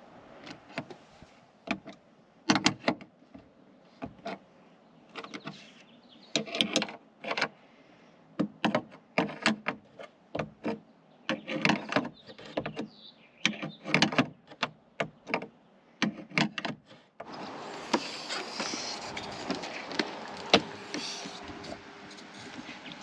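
Irregular knocks, clunks and clatter of wood and hardware being handled while a shelf is fitted, with a few short mechanical bursts. About seventeen seconds in, this gives way abruptly to a steady background hiss with a few clicks.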